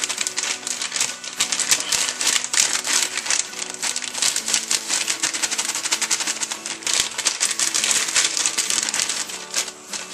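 A spoon stirring briskly in a stainless steel pan of hot water and spray malt, scraping and tapping against the pan in rapid strokes. Background music plays underneath.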